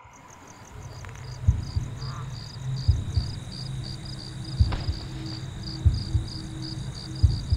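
Crickets chirping in a steady pulse of high chirps, about three a second. Several dull low thumps sound underneath at irregular intervals.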